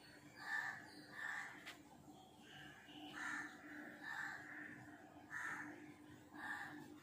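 A bird calling repeatedly in short, harsh calls, roughly one a second, over a faint steady hum.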